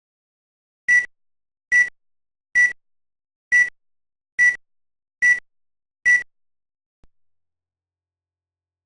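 Seven short, identical high electronic beeps, evenly spaced a little under a second apart, followed by a faint click.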